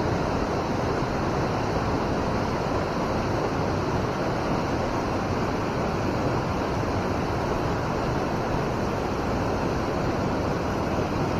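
River current rushing steadily, an even wash of moving water.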